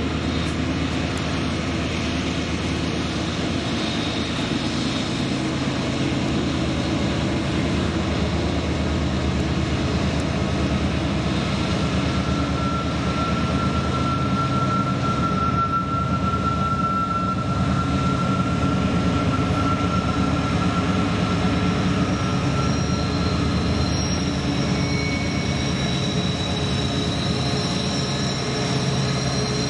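Norfolk Southern diesel-electric locomotives running as a freight train approaches and passes, a steady low engine drone that swells slightly midway. Thin high-pitched tones come in over it in the last third.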